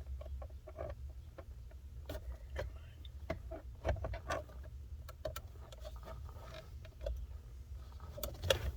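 Irregular light clicks and knocks of a plastic center console being handled and worked into position, over a low steady hum.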